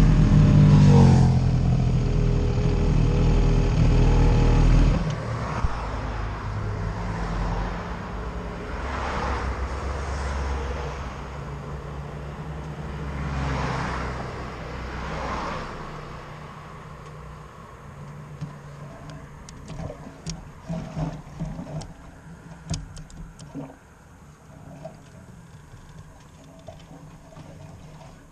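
Sport motorcycle engine running at a standstill, its sound cutting down abruptly about five seconds in. After that, cars pass close by one after another with a rising and falling whoosh, and scattered light clicks come near the end.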